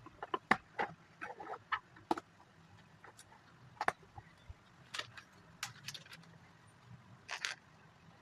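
Plastic Lego pieces clicking and rattling as they are handled: a dozen or so short, sharp clicks at irregular intervals, the loudest about half a second, two seconds and four seconds in, with a double click about seven and a half seconds in.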